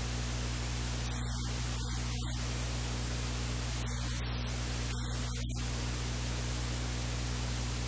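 Steady static hiss with a low electrical hum running under it; no other sound stands out.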